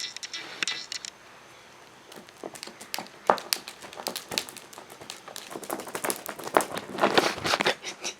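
Cat wand toy rustling and clicking as it is swung and batted at, a quick irregular run of sharp taps and crinkles that grows denser from about two seconds in.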